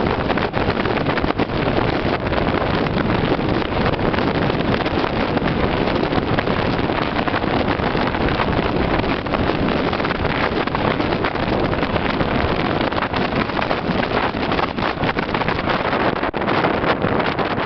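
Rescue helicopter hovering close overhead: a loud, steady rotor and engine noise, with wind buffeting the microphone.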